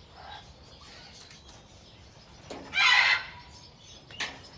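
A large parrot gives one loud, harsh squawk about three seconds in, with a sharp click about a second later.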